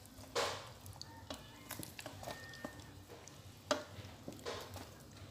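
Wooden spatula stirring a thick tomato stew in an aluminium pot, scraping and knocking against the pot in a few irregular strokes, the loudest just under half a second in.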